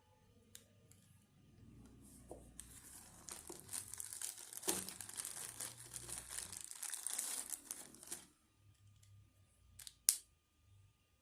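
Packaging being crinkled and torn open by hand for several seconds. It stops, and a sharp click follows near the end.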